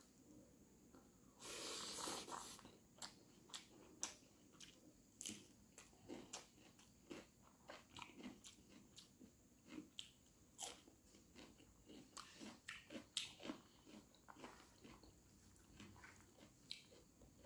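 Quiet, close chewing and wet mouth clicks of someone eating rice with broiler chicken liver and gizzard by hand, with a louder crunch about two seconds in.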